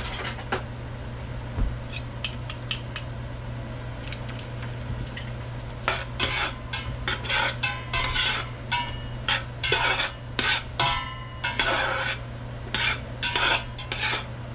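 A spoon stirring chopped onions and garlic in melted butter in a stainless steel stockpot, scraping and clanking against the pot in quick, irregular strokes from about six seconds in. A few sharp clicks come in the first three seconds, over a steady low hum.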